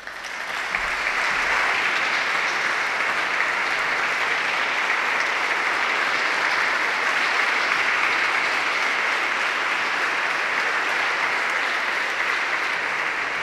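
Audience applauding: many people clapping in a steady, dense stream of claps that swells up within the first second and eases slightly near the end.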